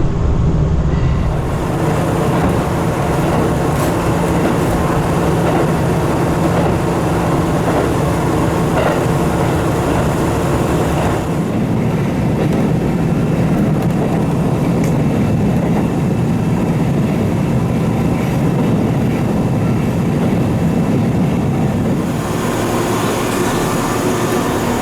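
Diesel railcar running between stations, heard from inside the carriage: a steady engine drone and rolling noise, with a few faint rail-joint clicks.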